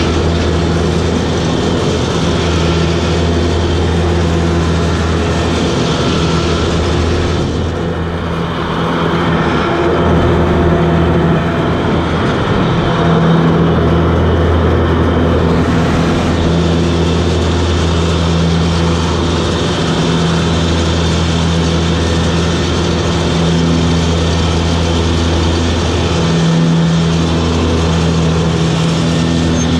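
Toro Groundsmaster 7210 zero-turn ride-on mower running steadily, its diesel engine giving a strong, even hum with a hiss over it. The hiss eases for several seconds about a quarter of the way in, then returns.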